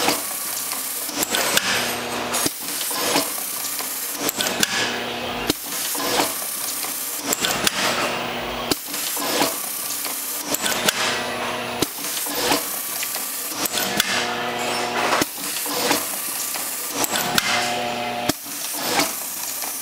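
Brother/JAM TC706 double-needle automatic belt loop setter running through its cycle: a steady machine hum with many sharp clicks and clacks from the loop-handling mechanism and the sewing head, and repeated short hisses.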